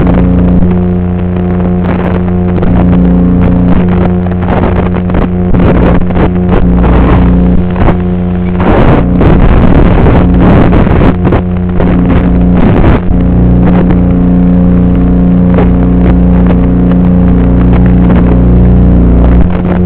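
Loud, steady buzzing hum carried in the audio of an FPV racing drone's analog video link. In the middle it breaks into bursts of crackling static as the signal breaks up while the drone flies through trees.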